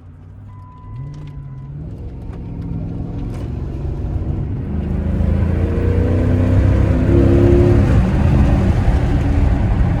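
Chrysler 300C's 5.7-litre Hemi V8 accelerating with its exhaust resonators cut out. The engine note climbs and grows steadily louder.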